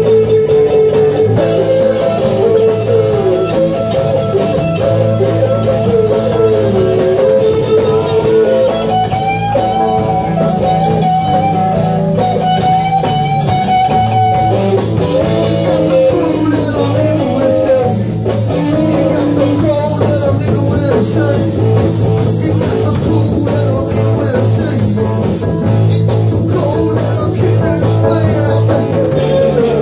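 Live blues band playing at full volume, with electric guitar, bass guitar and drums, and a lead line held and bent over the steady groove.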